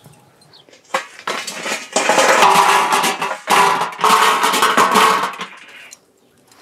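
Burning lump charcoal poured out of a chimney starter into a kettle grill, the chunks clattering and rattling onto the metal bowl and grate. It comes in two bursts with a short break in the middle, then trails off.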